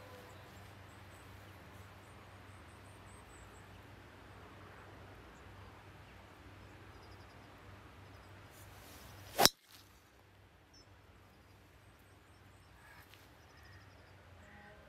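A golf driver strikes a ball off the tee: one sharp, loud crack about nine and a half seconds in. Faint birdsong chirps around it.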